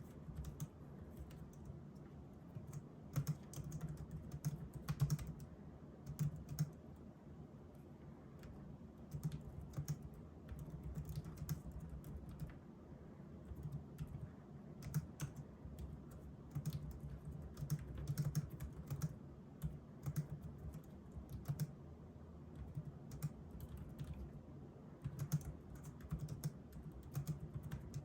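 Typing on a Logitech K380 slim Bluetooth keyboard with low-profile round keycaps: quick runs of light key clicks broken by short pauses.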